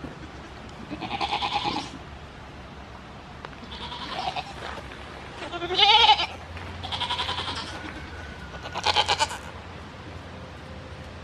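A goat bleating five times in wavering calls about a second apart, the loudest about six seconds in.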